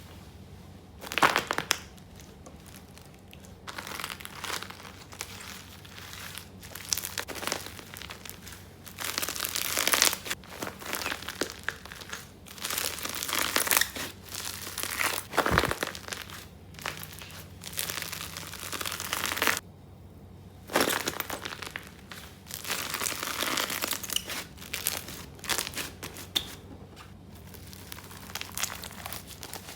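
Slime squeezed and pressed in repeated handfuls, its air bubbles popping in crunchy crackles. Each squeeze lasts one to two seconds, with quieter pauses between.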